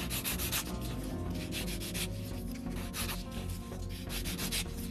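Hand nail file rubbing across an acrylic powder nail in quick, repeated back-and-forth strokes, filing the sidewall near the cuticle.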